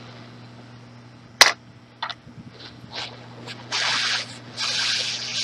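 Rework-bench tool handling: one sharp click, then a couple of lighter clicks, then two short bursts of hiss from the hot-air rework station's nozzle as it is brought over the iPhone 6 Plus board to heat the Meson touch IC for removal. A low steady hum runs underneath.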